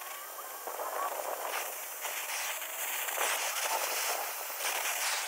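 Brazing torch flame hissing steadily as it heats a copper joint on a heat pump's reversing valve, with brazing rod being fed in.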